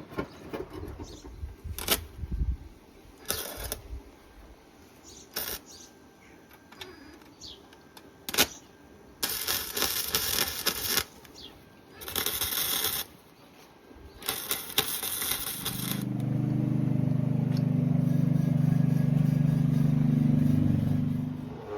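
Metalwork sounds on a vehicle bulkhead repair: a few sharp metallic knocks, then three hissing bursts of one to two seconds each, followed by a steady low machine hum for about five seconds that stops shortly before the end.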